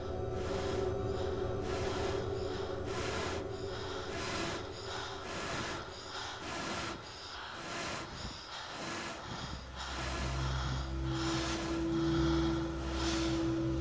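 Rhythmic breath sounds, a short breathy rush repeating roughly every second, over soft sustained musical notes. A louder held note and a low drone come in about ten seconds in.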